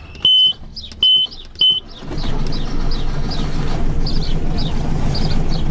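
A sailing yacht's engine control panel gives three short high beeps as the key and start button are worked, then the inboard engine catches about two seconds in and runs with a steady low drone, starting at last after it had refused to start following refuelling.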